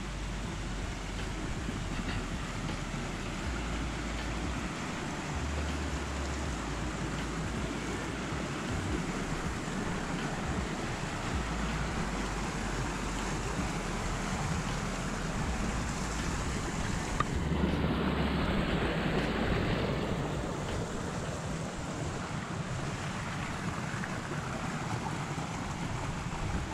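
Small mountain stream rushing steadily over little cascades, with wind buffeting the microphone; the sound swells louder for a few seconds a little past the middle.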